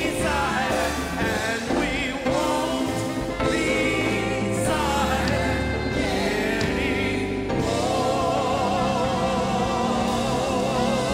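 Gospel music: singing with a choir over a steady bass line, the voices turning to long, wavering held notes about two-thirds of the way through.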